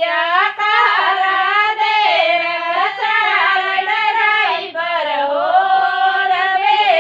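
Women singing a traditional Indian wedding song (mangal geet) with no instruments, one sustained, melismatic line running on without a break.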